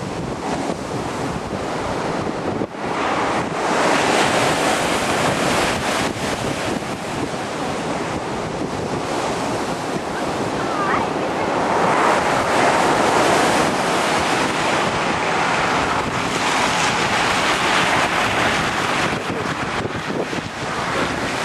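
Heavy hurricane surf breaking and rushing in, mixed with strong wind buffeting the microphone. It is a continuous roar of noise that surges louder several times as the waves break.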